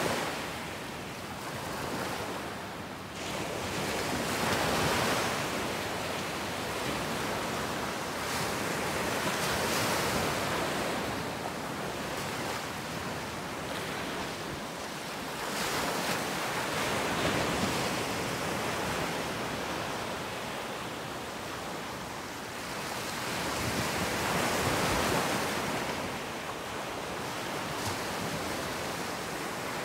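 Ocean surf breaking and washing up a beach: a steady rushing hiss that swells and eases every five to seven seconds as each wave comes in.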